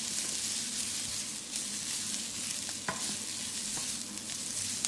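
Chopped green vegetables sizzling in a hot frying pan as a wooden spoon stirs them, with a few light knocks of the spoon against the pan around the middle.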